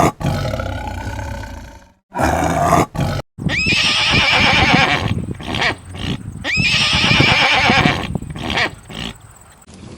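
A big cat's roar in the first couple of seconds, then a horse whinnying twice, each whinny opening with a rising squeal and lasting about two to three seconds.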